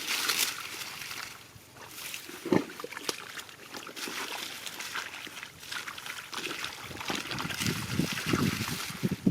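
Shallow rice-field water sloshing and splashing as it is worked through by hand, with trickling and one sharper splash about two and a half seconds in.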